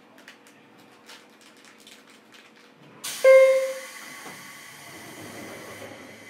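Pneumatic sliding doors of a JR Kyushu 103 series 1500-subseries electric train car (KuMoHa 103-1512) closing for departure. About three seconds in there is a sudden loud clunk with a brief ring, followed by a hiss of air lasting a few seconds.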